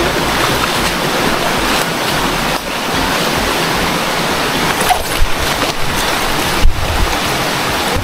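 River water rushing over stones, a steady loud rush, with two brief knocks, one about five seconds in and one near seven seconds.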